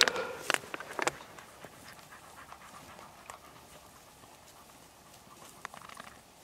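Pointer dogs panting, with a few sharp clicks and rustles in the first second, then fainter.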